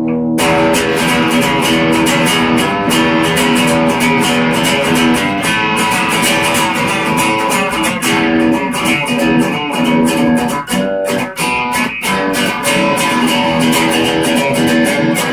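Chapman ML3 Traditional electric guitar played through an amp in a steady stream of quickly picked notes and chords, played loosely.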